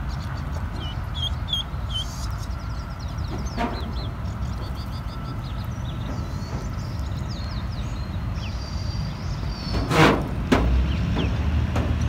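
Pond-side ambience: a steady low rumble, with small birds chirping in the background, mostly in the first half. A sharp thump about ten seconds in is the loudest sound, and a smaller one follows near the end.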